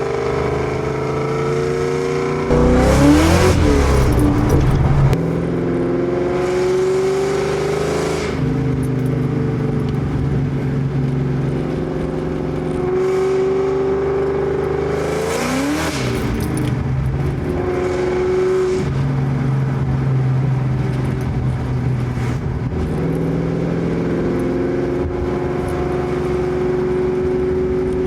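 Supercharged 4.6-litre V8 of a 2003 Mustang SVT Cobra, exhaling through Kooks headers and a Borla ATAK exhaust, pulling through the gears: the engine note climbs, drops at each shift, then settles to a steady cruise. The loudest part is a hard acceleration from about three seconds in, lasting a couple of seconds.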